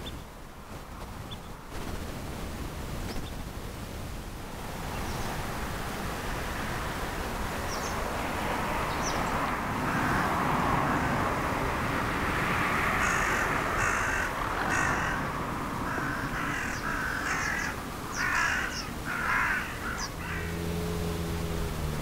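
Harsh, caw-like bird calls, repeated several times in quick succession through the second half, over a steady outdoor background hiss.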